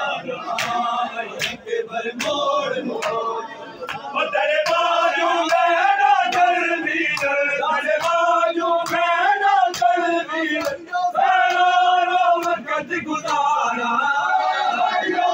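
A crowd of men chanting a noha together in a loud mourning chant, which swells fuller about four seconds in. Sharp slaps of chest-beating (matam) keep time, about one or two a second.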